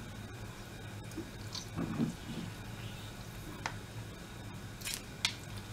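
A piece of lemon squeezed by hand, with a soft squelch about two seconds in and a few light clicks near the end, over a steady low hum.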